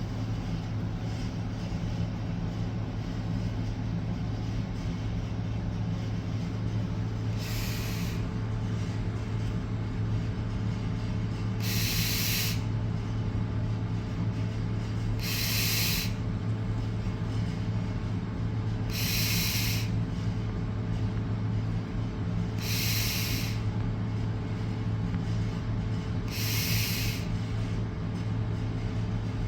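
Six noisy, hissing breaths through the nose, one every three to four seconds, over a steady low hum.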